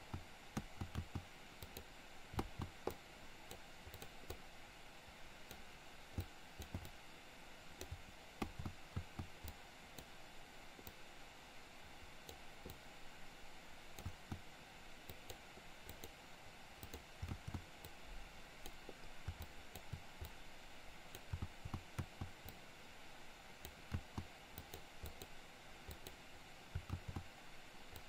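Irregular clicks and taps of a computer mouse and keyboard being worked, scattered throughout, over a faint steady hiss.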